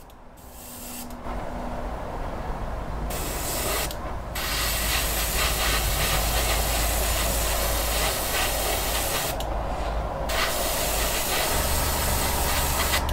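Airbrush hissing as it sprays model paint in several long bursts, with short breaks about a second in, near four seconds and near ten seconds. A low steady hum runs underneath.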